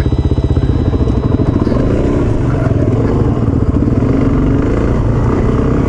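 Suzuki DR-Z400 dual sport motorcycle's single-cylinder four-stroke engine running at low speed under the rider, with an even pulsing beat while the bike is ridden slowly on a dirt track.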